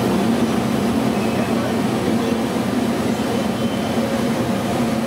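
Steady rumbling noise with a low hum, unchanging in level, with faint voices beneath it.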